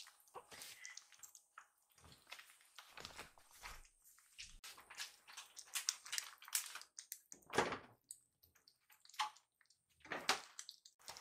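Two kittens eating from raised ceramic food bowls: irregular wet smacking, lapping and chewing noises.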